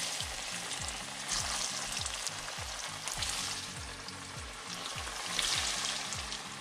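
Breaded permit fish bites deep-frying in hot oil: a steady bubbling sizzle that swells louder several times.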